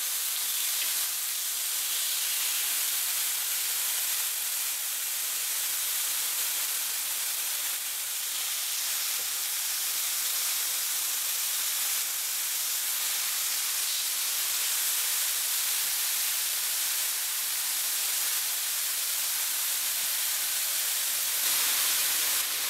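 Marinated chicken fillets sizzling steadily in a hot, lightly oiled grill pan, growing briefly louder near the end.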